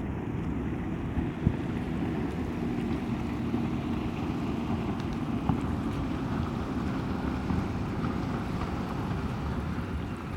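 Steady low rumble of wind buffeting the microphone outdoors, with one light knock about a second and a half in.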